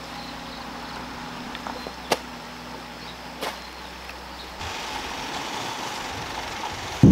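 A hand hoe chopping into loose garden soil: two sharp strikes about two and three and a half seconds in, the first the loudest. Between them is a faint steady outdoor background, which turns to a slightly louder, even hiss a little past the middle.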